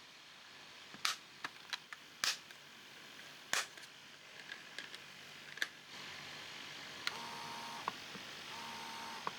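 Sharp plastic clicks and taps from handling the parts of a disassembled breast pump, scattered through the first half. Near the end a faint tone comes and goes in short spells.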